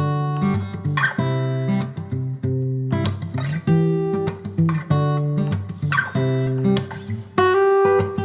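Background music: a strummed acoustic guitar playing chords.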